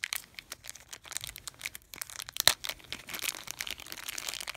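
Clear plastic packaging crinkling and crackling as it is handled and unwrapped, in irregular bursts, with one sharp crackle louder than the rest about halfway through.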